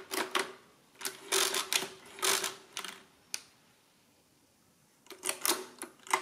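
Precisa 117 pinwheel mechanical calculator: a few keys clicked on the 10-key keyboard, then the side crank turned backwards to subtract, the mechanism clattering for about two seconds. A single sharp click follows, and another short clattering burst comes near the end.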